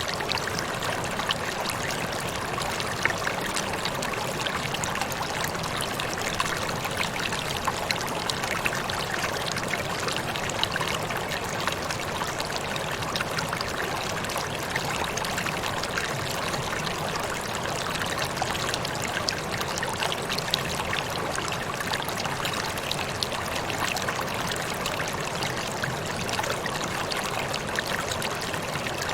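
Waterfall: water falling and splashing steadily, with a continuous rushing hiss and fine crackling spatter.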